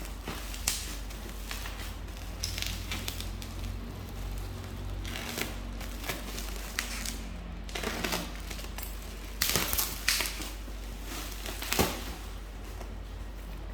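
Packaging being handled during an unboxing: irregular crinkling, rustling and sharp clicks, loudest about ten seconds in and again near twelve seconds, over a steady low hum.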